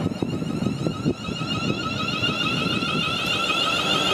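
Greater Anglia electric multiple unit moving off past the platform: wheels knock and rumble over the track in the first second or so, then a steady electric whine with several tones grows louder.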